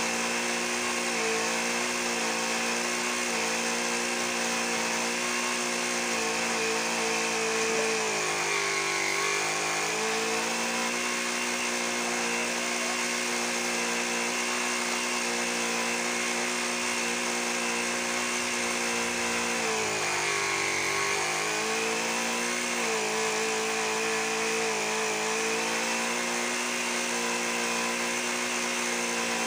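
Mini car tyre-inflator air compressor running steadily to feed an airbrush, a buzzing motor drone over a hiss of air. Twice its pitch sags for a second or two and then recovers, about a third and about two-thirds of the way through.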